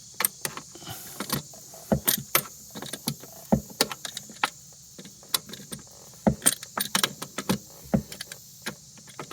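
Metal hand tools clinking and clicking against fittings and fasteners while a Sea-Doo's parts are unbolted: a run of irregular sharp clicks and clanks.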